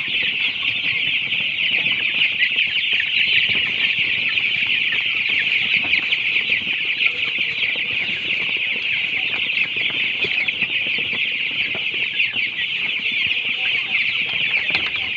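A large flock of young white broiler chicks peeping continuously, a dense, high chirping chorus with no let-up.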